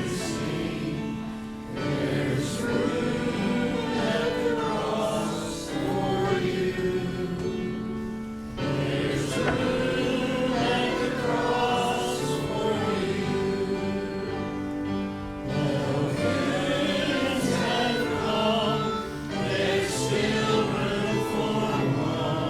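A choir singing a hymn in sustained phrases of a few seconds each, with brief pauses between them.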